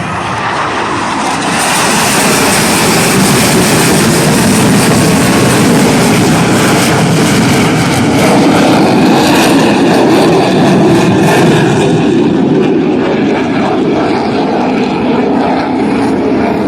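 Blue Angels F/A-18 Super Hornet jets flying past: a loud jet-engine roar that swells about one and a half seconds in and eases a little in the last few seconds.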